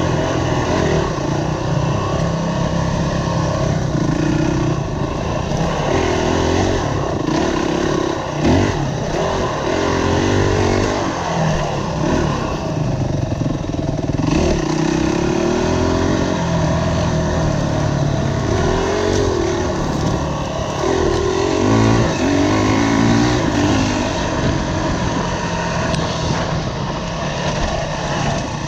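Four-stroke single-cylinder engine of a Honda CRF dirt bike, heard from on the bike while it is ridden, its pitch rising and falling again and again as the throttle is opened and closed.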